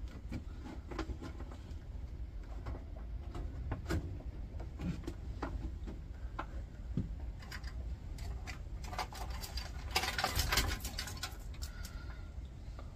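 Scattered light clicks and taps as wiring and plastic connectors are pulled out of a steel computer tower chassis, with a denser bout of rattling about ten seconds in.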